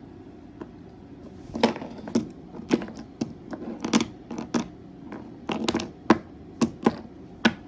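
A run of sharp, irregular clicks and knocks, about fifteen, from hard objects striking, starting about a second and a half in.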